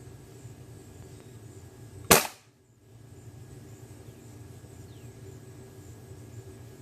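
A single .22 LR rifle shot about two seconds in.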